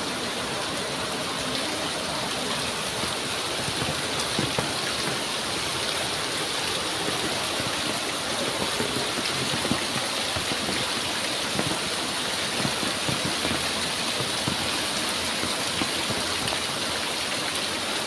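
Heavy rain falling steadily, with many separate louder drop hits scattered through the steady hiss.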